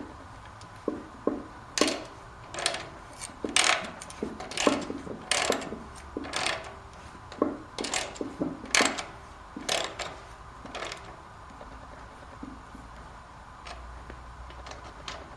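Irregular metallic clinks and taps of hand tools and small bolts being handled while bolts are fitted during a motorcycle air-cleaner install. They come about a dozen times over the first ten seconds or so, then stop.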